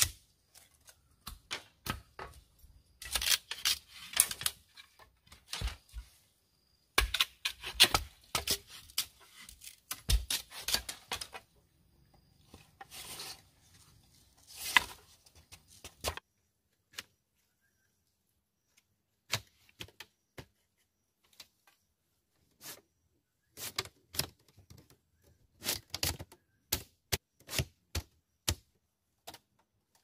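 Irregular sharp clicks and knocks: dense clusters of rapid taps up to about 16 s in, then scattered single knocks with longer gaps.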